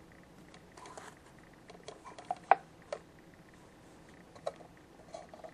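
Scattered light clicks and taps of a trading card in a hard plastic holder and its tin being handled, the sharpest about two and a half seconds in.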